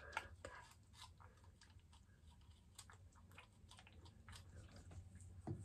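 Near silence with faint scattered crackles and ticks: fingers working through hair while liquid tape-in remover is squeezed from a nozzle bottle onto the scalp.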